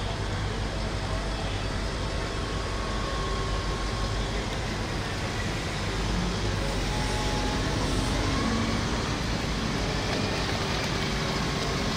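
Diesel engine of a Volvo EWR150E wheeled excavator running steadily, a continuous low hum, a little louder from about six seconds in.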